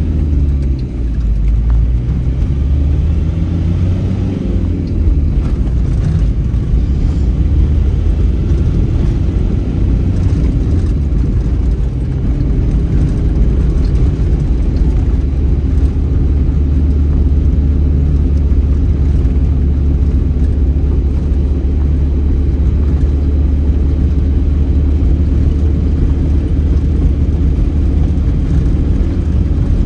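Car driving at speed: steady low engine and road rumble.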